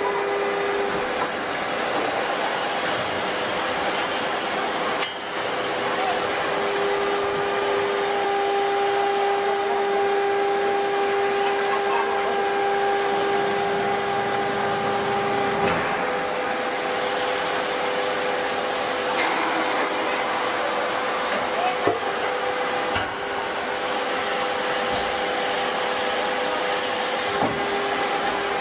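Large hydraulic forging press running on a red-hot forging: a steady rushing noise with a hum of a few steady tones that change pitch about halfway through, and a few faint knocks.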